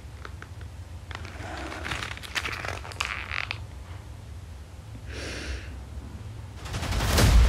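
Paper crinkling and rustling as a small folded paper packet is opened by hand, followed by a short breathy sound. Near the end a deep boom and dramatic music swell in loudly.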